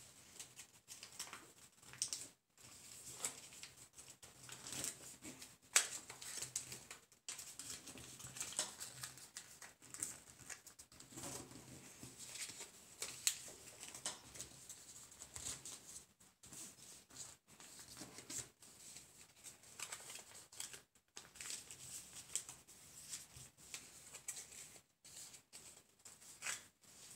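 A sheet of paper being folded by hand into a paper box, with short, irregular rustles and crinkles as it is creased and pressed flat.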